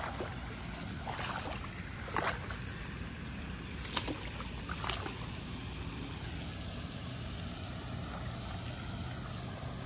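Water splashing as a carp landing net is pushed into the pond, with four or five sharp splashes in the first five seconds, then a steady low background noise.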